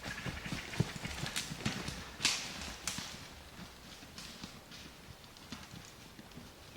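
Quick, irregular footsteps at a run, knocks and rustles on the ground that grow fainter through the clip.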